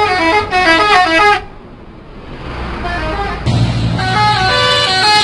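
Bus 'telolet' multi-tone horn playing a rapid tune of stepping notes. The tune breaks off about a second and a half in, leaving a low rumble, and a horn tune starts again about three and a half seconds in.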